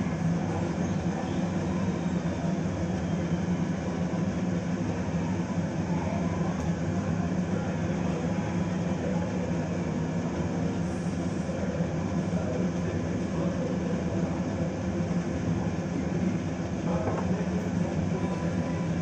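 Steady low drone of a kitchen fan running.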